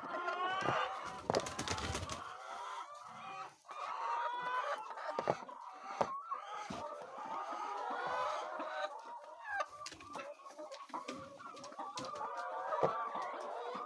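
A flock of hens clucking and calling over one another, with scattered sharp clicks and a short rush of noise about a second in.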